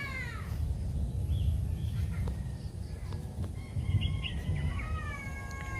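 Animal calls: a short arched call right at the start and a longer, drawn-out gliding call from about two-thirds of the way in, over a steady low rumble.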